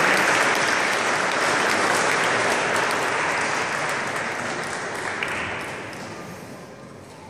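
Congregation applauding, the clapping holding steady for about four seconds and then dying away.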